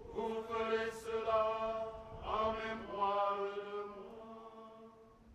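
Liturgical chant: voices sing long held notes that change pitch a few times, with a sliding step about two seconds in, then die away near the end.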